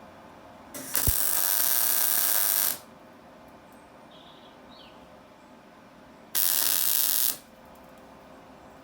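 Two tack welds on a steel fender repair panel: the welding arc hisses steadily for about two seconds from just under a second in, with a sharp click as it strikes, then for about a second near the end.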